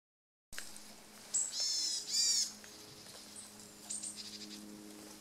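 Varied tit giving its call notes: a high thin note and two drawn-out, nasal notes in quick succession about a second and a half in, then a shorter group of calls near four seconds.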